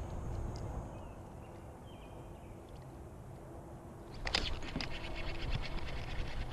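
Quiet open-water background with a few faint chirps, then a sudden loud noise about four seconds in, followed by a fast run of ticks from a fishing reel being cranked to retrieve the line.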